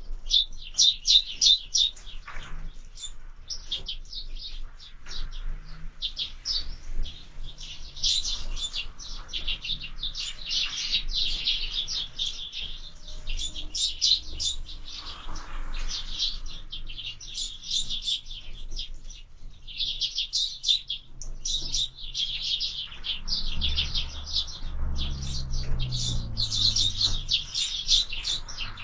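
Sparrows chirping continuously, many rapid overlapping chirps from a crowd of birds squabbling at a feeder, with a low rumble under them near the end.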